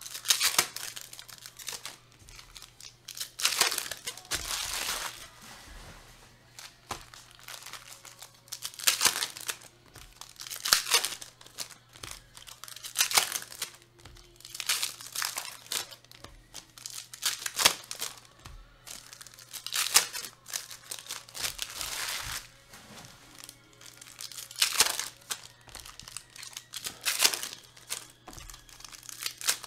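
Foil trading-card pack wrappers crinkling and tearing as packs are ripped open, in repeated bursts every second or two, with cards shuffled between them. A low steady hum lies underneath.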